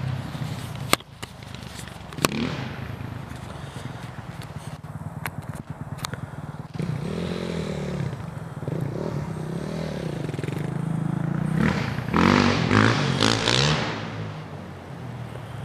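Dirt bike engine running off in the distance, revving up and down again and again over a steady drone, loudest for a couple of seconds near the end. Two sharp knocks about a second in and about two seconds in.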